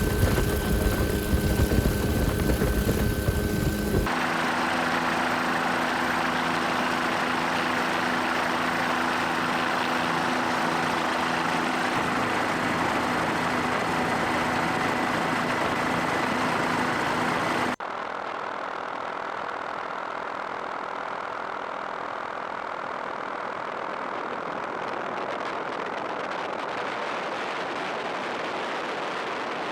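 Helicopter engine and rotor noise, a steady drone with a few held tones, that changes abruptly about four seconds in and drops in level around eighteen seconds in.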